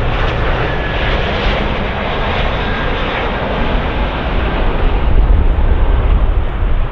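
Boeing 717's Rolls-Royce BR715 jet engines running at approach power as the airliner passes low and flares for landing. A steady jet noise with a faint thin whine early on, growing somewhat louder about five seconds in.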